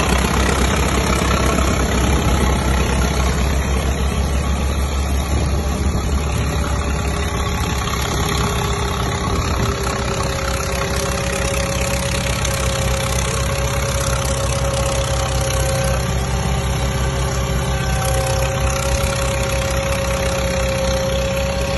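Tractor engine running steadily while driving a PTO dynamometer for a power test, a continuous low rumble. About halfway through a steady whine comes in and holds.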